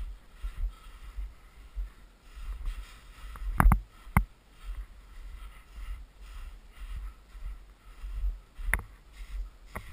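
A hiker's boots crunching and thudding in packed snow at a steady walking pace, with a few sharper knocks, the loudest two about a third of the way in and another near the end.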